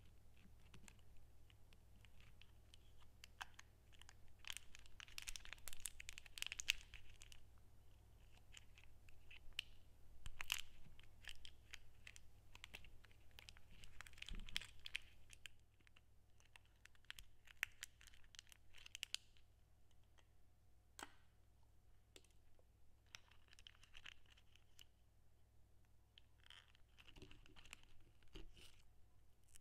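Quiet crinkling of a gold foil-like Werther's Original caramel wrapper being worked open by fingers. It comes in bursts of crackly rustling dotted with sharp little clicks, with short pauses between them.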